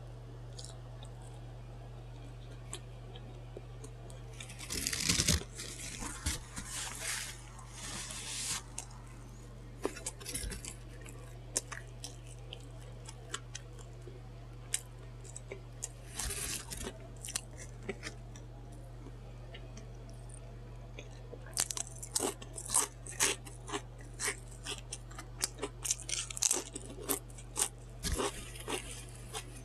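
Close-miked eating: bites of a sandwich with lettuce, peppers and bacon, and crisp crunching and wet mouth clicks. They come in clusters a few seconds in, briefly around the middle, and then densely through the last third. A steady low hum runs underneath.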